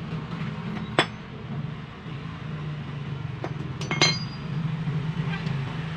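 Metal parts of a car power window regulator clinking as they are handled and set down on a concrete floor: one sharp clink about a second in, then a quick cluster of clinks just before four seconds with a brief high ring. A steady low hum runs underneath.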